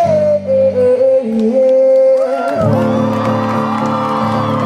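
Live acoustic guitar and singing, with the audience singing along; about two and a half seconds in, the guitar comes in with a fuller strummed chord that is held out as the song ends.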